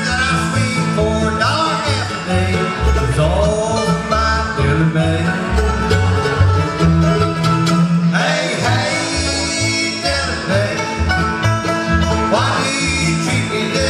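Live bluegrass band playing: five-string banjo, mandolin, acoustic guitar and upright bass together, the bass plucking a steady pulsing beat under the picked strings.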